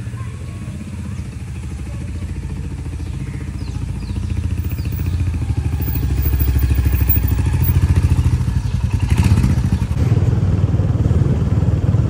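Motorcycle engine running with a fast, even firing beat, growing louder over the first half.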